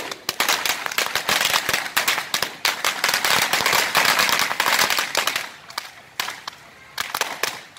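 A string of firecrackers going off on the road: dozens of sharp bangs in rapid, crackling succession. The bangs thin out about two-thirds of the way through, with a few last ones near the end.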